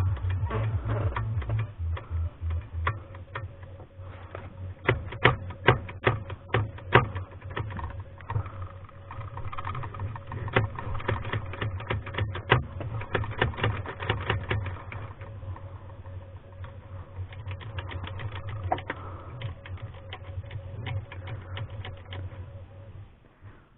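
Remington Noiseless No. 6 typewriter's mechanism clicking and clattering as it is worked: many quick clicks, some louder, over a low hum, stopping near the end.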